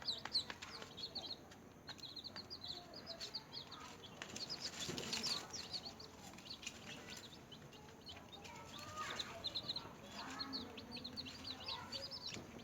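Newly hatched chicks peeping nonstop, many short high chirps that slide downward and overlap, with a few sharp taps among them.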